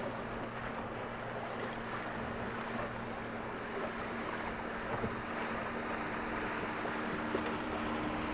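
Steady rush and lap of water along the hull of a Nordica 16 sailboat under sail, with wind on the microphone and a faint steady low hum.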